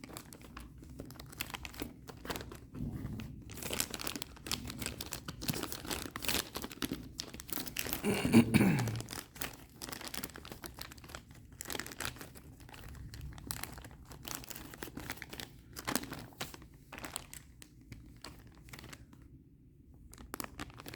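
Plastic and cardboard packaging rustling and crinkling as kit parts are handled and put back into their boxes, with scattered clicks and taps and one louder burst about eight seconds in.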